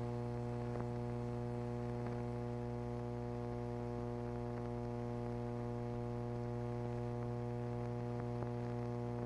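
Steady electrical hum with a stack of evenly spaced overtones and a few faint clicks, running under the silent title cards of an old film soundtrack.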